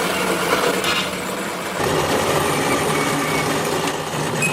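A power tool working metal: a loud, steady rasping noise over a low hum, easing briefly a little under two seconds in, then carrying on.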